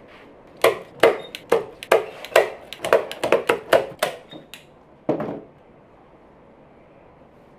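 Manual staple gun firing staples through upholstery fabric into a chair seat pad: a quick run of about a dozen sharp clacks, roughly three a second, then one more after a short pause.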